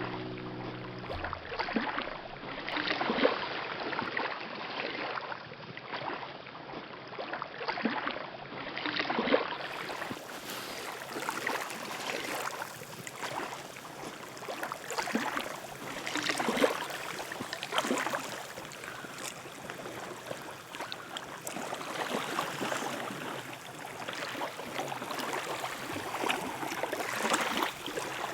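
Small waves lapping against a lakeshore in irregular splashes every second or two, over a steady wash of water.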